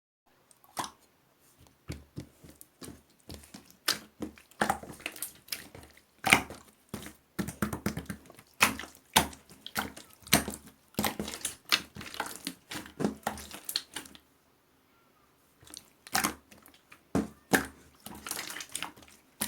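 Marbled slime being squished and pressed by hand, making irregular wet clicks and pops, with a short pause about two thirds of the way through.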